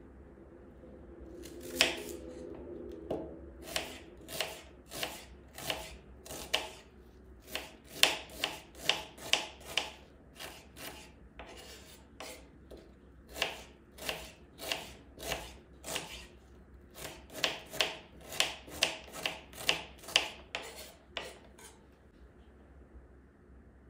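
Kitchen knife chopping a peeled onion on a wooden cutting board: a long run of sharp knife strikes on the board, about two a second with short pauses, starting about two seconds in and stopping shortly before the end.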